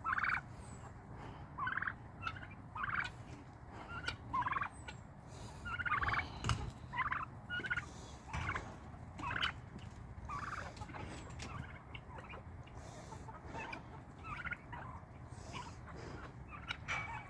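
Midget White turkeys gobbling, a run of short, loud calls repeated every second or so.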